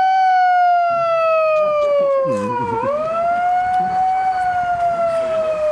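A wailing siren sounding the start of the game: a loud tone that slowly falls, dips sharply and sweeps back up a little before halfway, then falls slowly again. Faint voices can be heard under it.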